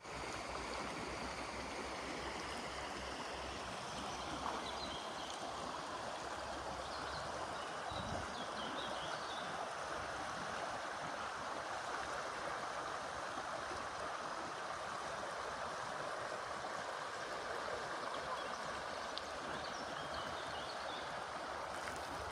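River water flowing steadily: an even, unbroken rushing with a few brief faint high chirps over it.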